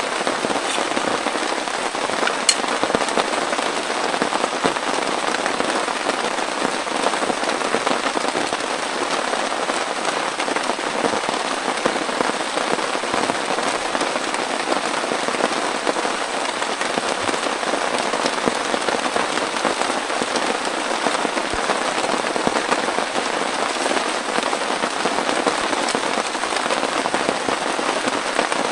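Heavy rain falling steadily, a dense hiss of countless small drop hits.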